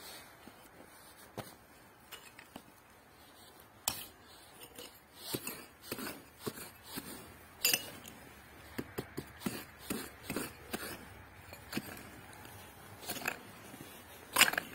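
Small metal hand hoe-cultivator digging into dry, stony soil: irregular scrapes and sharp clinks as the blade strikes stones and gravel, with loose dirt and pebbles scattering. The loudest strike comes near the end.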